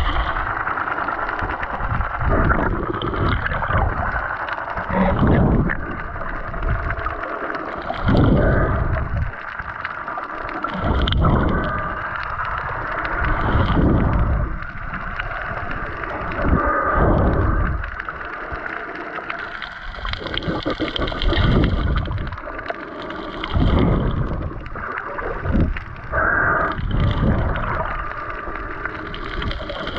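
Muffled water sloshing and rushing in surges about every three seconds, as a spearfisher swims at sea.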